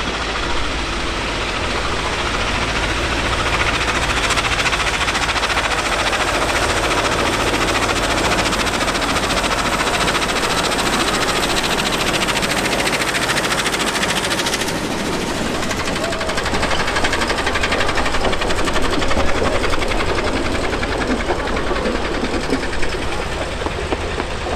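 Narrow-gauge locomotive running with a short train, its engine making a steady, fast-beating mechanical sound; the sound changes abruptly about 15 seconds in.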